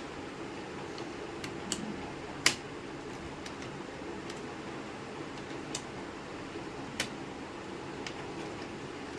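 A handful of sharp clicks over a steady fan-like hum, the loudest about two and a half seconds in, from small parts and tools being handled during laptop repair work.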